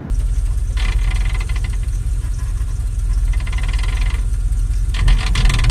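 Manual transmission gears grinding as a gear is pushed in with the engine running: a rapid ratcheting grind for about three seconds, then again briefly near the end. This grinding when shifting could be worn synchronizers failing to slow the gears.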